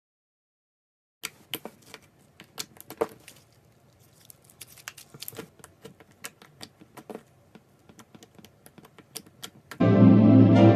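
Irregular sharp clicks and crackles of a blade cutting into a slime-filled stress ball, starting about a second in. Background music comes in near the end.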